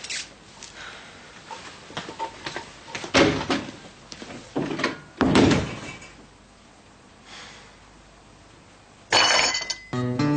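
Door knocks and thuds, a door being handled and shut, several over the first six seconds, the longest about five seconds in. A sudden louder burst of noise comes about nine seconds in, and music starts just before the end.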